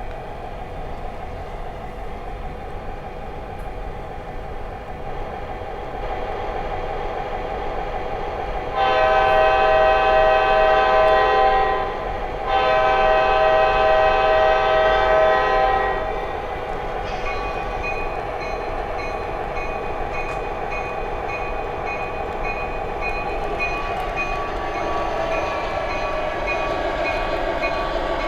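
MTH O gauge F59 PHI model locomotive's Proto-Sound 3 system playing diesel engine sound through its onboard speaker, with two long horn blasts about nine and twelve seconds in, the loudest part. Over the second half a rapidly repeating bell rings above the engine sound.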